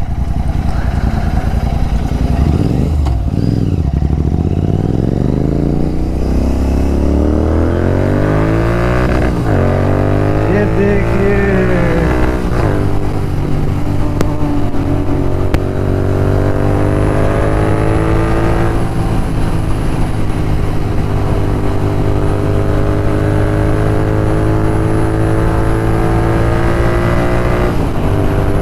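Royal Enfield Continental GT 650's 648 cc parallel-twin running through aftermarket Red Rooster exhausts as the motorcycle is ridden hard. It pulls up through the gears, with shifts about 3, 9 and 12 seconds in, then holds a steady high-speed cruise with the revs creeping slowly up.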